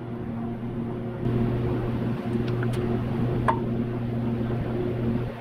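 A steady low hum, with a few light metal clicks as the oil cooler is pressed by hand onto its seat on the engine block.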